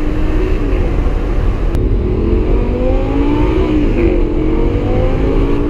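Lamborghini Gallardo LP560-4's V10 heard from inside the cabin while accelerating. The engine note eases off about a second in, then climbs in pitch. Near the middle it drops quickly, as at an upshift, and then climbs again.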